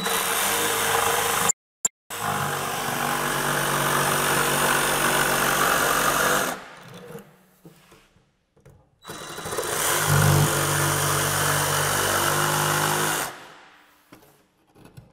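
DeWalt XR cordless jigsaw running at full speed and cutting through a board with a flush-cut blade, in two runs: one of about six seconds with a short break near the start, then another of about four seconds starting about nine seconds in.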